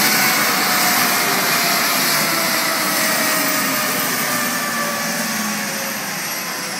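London Air Ambulance MD 902 Explorer helicopter on the ground, its twin turbines whining over a steady rotor whoosh. The whine slides slowly down in pitch and the whole sound eases off, as the engines wind down after landing.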